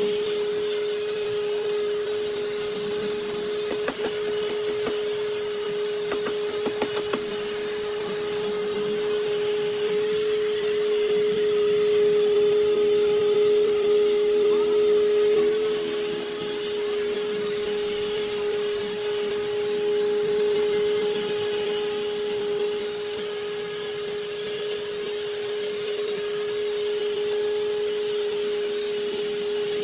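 A machine running steadily with a constant humming tone. A few light clicks come about four seconds in and again around seven seconds.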